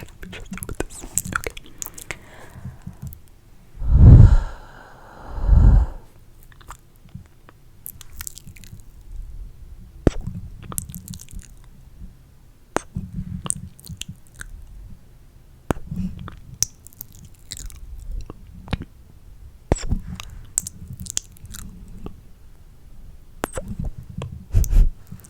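Close-miked ASMR mouth sounds: a scattered run of wet clicks and smacks. Two loud, low bursts come about four and six seconds in, and another near the end.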